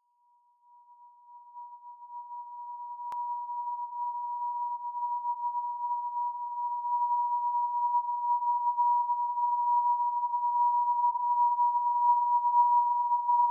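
A single steady pure tone a little under 1 kHz, fading in slowly from silence and growing louder. There is a faint click about three seconds in.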